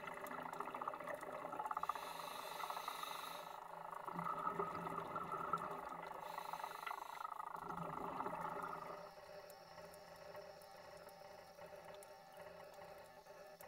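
Underwater sound of a scuba diver's breathing through a regulator: bubbling exhaled air, muffled by the water, with a brief hiss twice. It drops to a quieter underwater hiss about nine seconds in.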